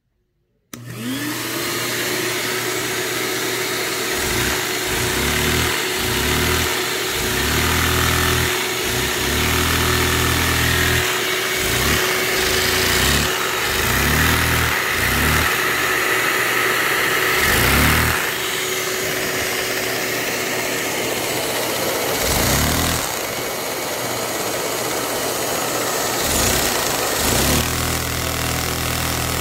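Shop vacuum switched on about a second in and running steadily, its pitch rising as it spins up, while the Lego vacuum engine it powers revs up and drops back again and again, its running note rising and falling many times.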